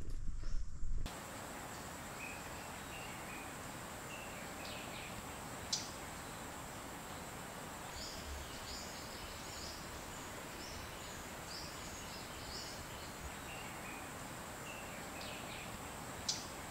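Forest ambience: a steady, even hiss with faint, scattered bird chirps and a thin, steady high insect whine. In the first second a louder low rumble cuts off abruptly.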